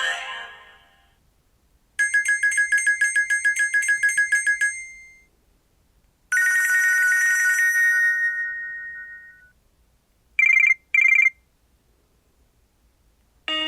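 Nokia C2-01 mobile phone playing short electronic ring and alert tones after a musical ringtone fades out. First comes a fast, trilling two-pitch ring for about three seconds, then a long beep that fades away, then two short beeps.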